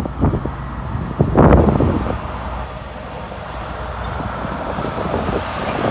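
Wind buffeting the microphone, with strong gusts near the start and about a second and a half in, over a steady low rumble from a distant freight train of coal hopper cars and highway traffic.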